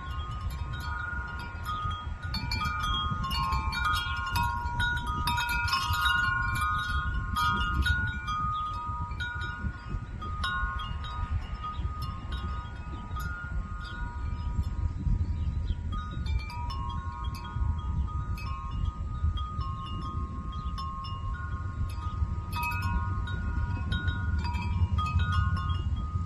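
Wind chimes ringing, their tubes struck irregularly and often overlapping so the tones blend and fade into each other, over a steady low rumble.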